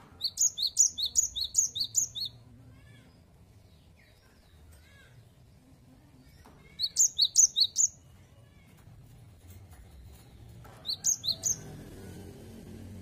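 Cinereous tit singing its 'wucit-wucit' song: bouts of quick, high-pitched two-part notes repeated several times a second. A long bout of about ten notes opens, a shorter one comes about seven seconds in, and a brief one of three or four notes about eleven seconds in.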